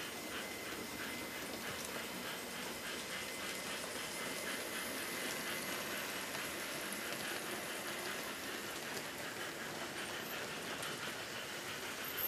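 HO-scale model trains rolling on the track: a steady running hiss and rumble from wheels and motors, with a regular light clicking of wheels over rail joints, about three clicks a second.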